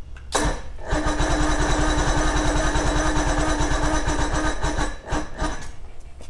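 Electric starter cranking an old Johnson 90 hp two-stroke outboard: a steady starter whine over fast, even compression pulses for about four seconds, then a brief second crank. The engine turns over without catching.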